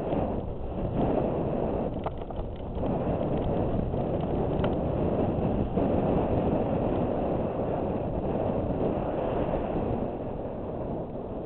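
Wind buffeting a helmet-mounted GoPro's microphone during a fast mountain-bike descent on a dirt trail, mixed with the bike's tyres rolling over dirt and gravel. A few short rattling clicks come about two seconds in.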